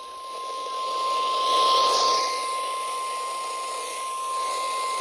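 NOAA Weather Radio's 1050 Hz warning alarm tone: a single steady, unwavering beep over radio static hiss that swells briefly about two seconds in. The tone is the signal that a warning broadcast follows, here a severe thunderstorm warning.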